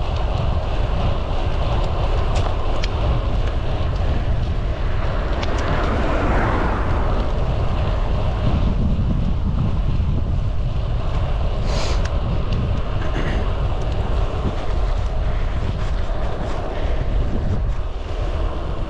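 Wind buffeting the microphone of a camera on a moving bicycle: a steady low rumble with a rushing haze above it, and a brief hiss about twelve seconds in.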